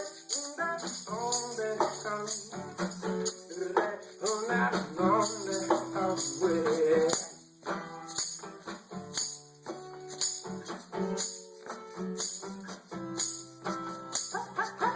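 Band music playing, with a tambourine jingling throughout and a wavering melodic line over the first half.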